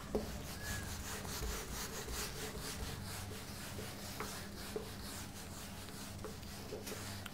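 A cloth wiping marker writing off a whiteboard: faint, repeated rubbing strokes.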